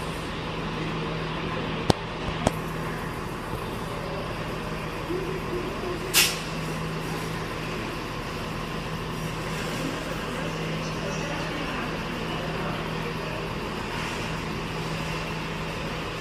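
Class 168 diesel multiple unit creeping slowly along the platform, its underfloor diesel engines humming steadily. Two sharp clicks come about two seconds in, and a short burst of air hiss from the brakes about six seconds in.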